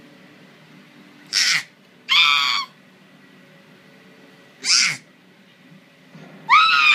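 A baby's high-pitched squeals: a short one about two seconds in and a longer one near the end that drops in pitch as it ends, with short breathy hissing sounds in between.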